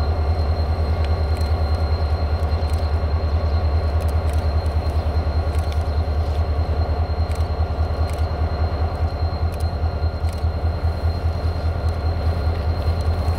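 Renfe class 333.3 diesel locomotive's EMD two-stroke V16 engine running with a deep, fast, steady throb as it hauls a train slowly past, with a thin steady high whine above it.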